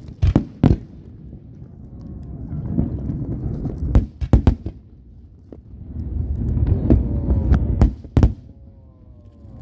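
Aerial fireworks bursting: sharp bangs in three groups, twice near the start, a quick cluster about four seconds in and another near eight seconds, with a low rumbling echo rolling between them.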